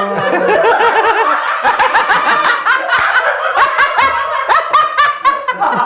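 Several people laughing hard together, in overlapping bursts of laughter without words.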